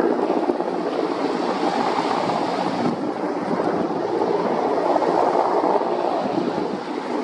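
Steady rushing of wind over the microphone of a camera mounted on a Mil Mi-8 helicopter in flight, mixed with the helicopter's own running noise.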